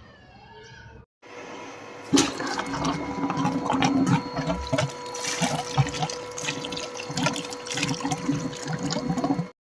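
Water gushing and splashing out of a pipe, likely through a newly fitted PVC ball valve being opened to test the fitting; it starts suddenly about two seconds in and stops abruptly near the end.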